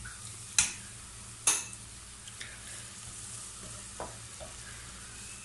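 Onion and spice masala sizzling steadily in hot oil in a non-stick pan, just after a little water is poured in, while a plastic spatula stirs it. Two sharp knocks come in the first second and a half, and a softer one about four seconds in.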